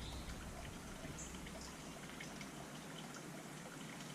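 Quiet room tone with a low hum that fades out a little under two seconds in, and a few faint light ticks, likely small parts being handled.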